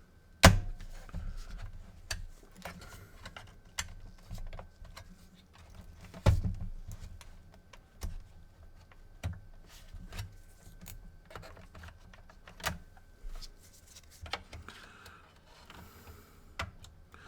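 Irregular clicks and knocks of plastic and metal as a stuck PS4 cooling fan is wiggled and pried out from between the motherboard and the metal mid plate, with the two loudest knocks about half a second in and about six seconds in.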